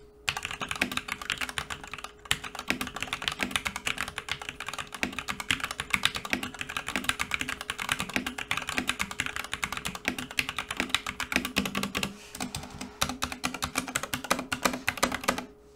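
Fast, continuous typing on an XVX MK61 mechanical keyboard with Gateron Yellow linear switches and PBT keycaps: a dense run of key clacks, with brief pauses about two and twelve seconds in. The keys sound clean, without echo or metallic ping.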